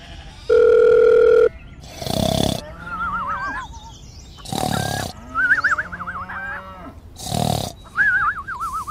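Three loud animal-like cries, about two and a half seconds apart. After each comes a high warbling whistle that wavers quickly up and down.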